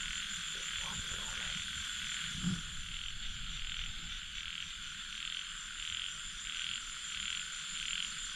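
A chorus of frogs calling over steady insect trilling in a rice paddy; from about three seconds in, one call pulses a little under twice a second.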